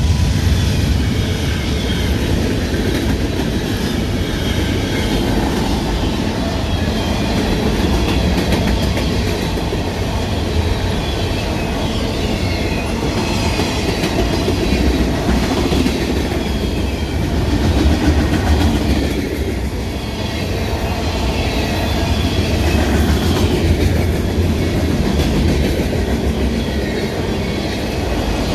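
Freight train cars rolling past on the rails in a steady, loud clatter, with a faint wavering squeal from the wheels.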